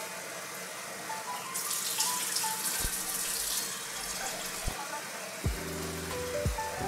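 Kitchen faucet running water into a Teflon-coated milk frothing pitcher as it is rinsed, the splashing louder for a couple of seconds in the middle, with a few light knocks.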